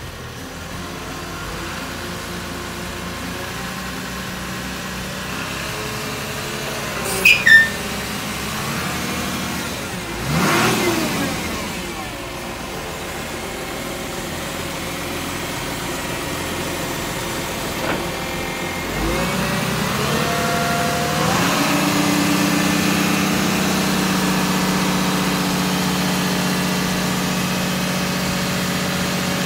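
Isuzu Forward truck's diesel engine running while the hook-lift arm is worked hydraulically; about twenty seconds in the engine speed rises and holds higher and steadier. Two short sharp sounds stand out about seven seconds in.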